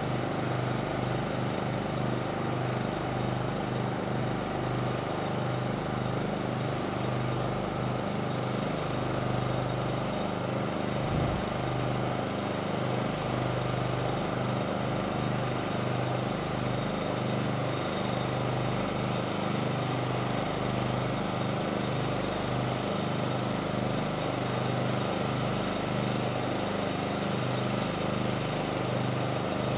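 A small engine running steadily, a continuous even drone that neither rises nor falls.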